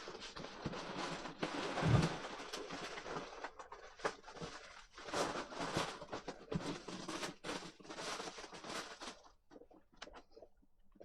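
Packaging rustling and crinkling in hand as parts are unwrapped from a parcel, in uneven clumps with a soft thump about two seconds in, stopping about nine seconds in.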